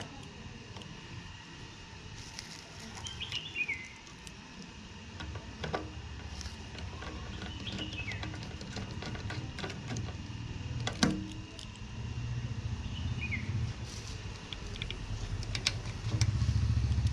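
A motor vehicle's engine rumbling on the street, growing louder toward the end, with a couple of sharp metal clinks from a socket wrench on the tank-ring bolts. A bird gives a short falling chirp every few seconds.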